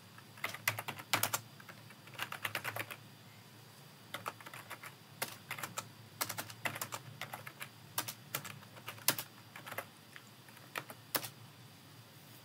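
Typing on a computer keyboard: keystrokes come in irregular bursts with short pauses between them.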